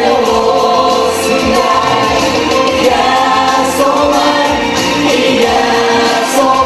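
Vocal group of two women and three men singing together into handheld microphones, with music.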